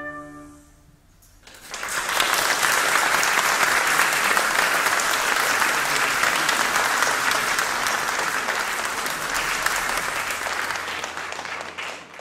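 The last chord of the piece dies away, and after a brief pause the audience breaks into steady applause, which drops away near the end.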